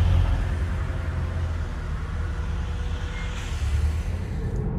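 Truck engine idling: a steady low rumble.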